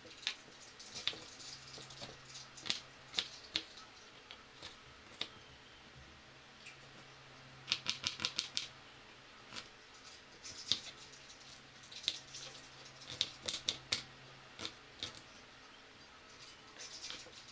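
Kitchen knife chopping onion on a plastic cutting board: irregular sharp taps of the blade striking the board, with a quick run of about half a dozen chops about eight seconds in.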